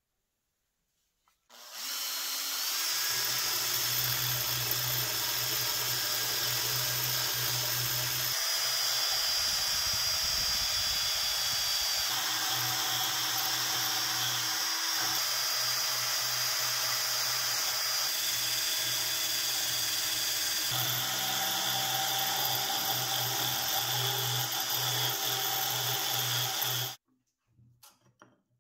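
Cordless drill spinning a rotary wire brush against the rusty steel tang of an old screwdriver, stripping the rust. A steady motor hum with a scratchy hiss starts about a second and a half in and stops about a second before the end.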